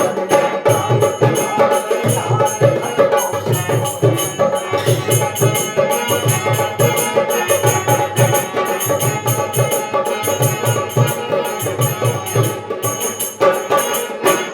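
Instrumental interlude of Bundeli dhimaryai folk music: a steady, evenly repeating drum beat with continuous jingling metal percussion and held melody notes.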